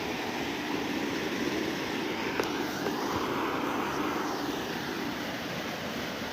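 Steady rush of running water. A sharp click comes about two and a half seconds in, and a broader swell of noise rises and fades in the middle.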